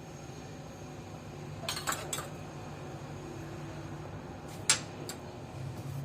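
A few sharp clicks and clinks of small hard objects being handled: a quick cluster about two seconds in and one louder click near the end, over a steady low hum.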